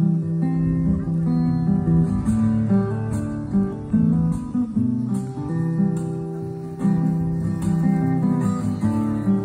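Instrumental acoustic guitar music, chords plucked and strummed in a steady flowing pattern.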